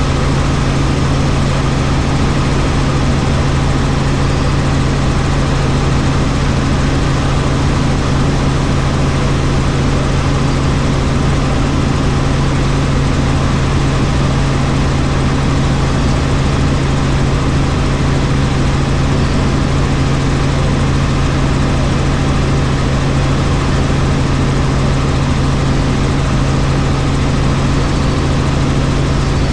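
Helicopter engine and rotors running steadily: a loud, even noise with a strong low hum that does not change.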